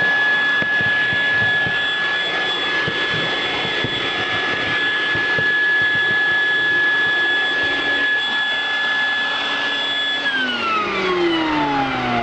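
Vacuum cleaner running with a steady whine over the rush of air, sucking debris out of a car's rear speaker recess. It is switched off about ten seconds in, its whine falling in pitch as the motor winds down.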